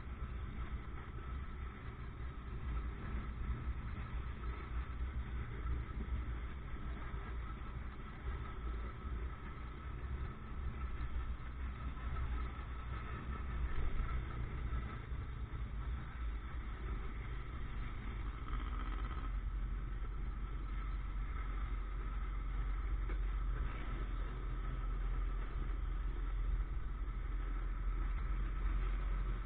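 Motorcycle engine running steadily while riding, mixed with the traffic around it: a continuous low drone with no sharp events, getting a little louder in the second half.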